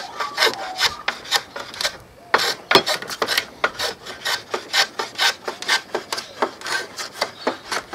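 Rapid back-and-forth scraping strokes of a small hand shaping tool shaving the end of a wooden dowel, tapering it down, about three strokes a second with a short pause about two seconds in.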